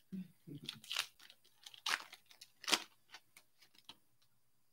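Hockey trading cards being handled and shuffled through, with crinkling of pack wrappers: a string of irregular sharp clicks and rustles, the loudest near two and three seconds in, stopping about four seconds in.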